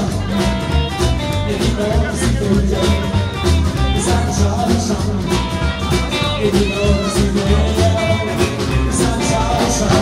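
Live band playing an upbeat rockabilly-style song: a man sings over strummed acoustic guitar and plucked upright double bass, with saxophone in the band and a steady beat.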